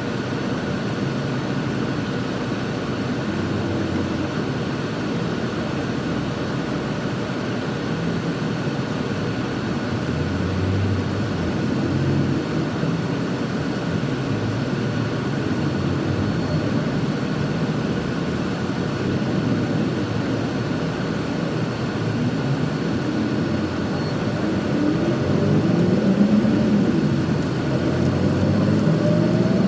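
Express bus engine and road noise heard from inside the cabin, a steady low drone. Twice near the end the engine pitch rises as the bus speeds up.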